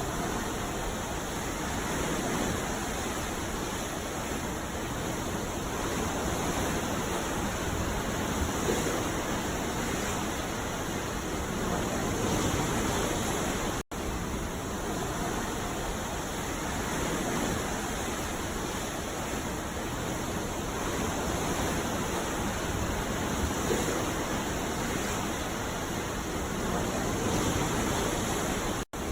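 Sea waves washing in a steady rush that swells and eases slowly, broken twice by a split-second gap of silence, about 14 seconds in and near the end.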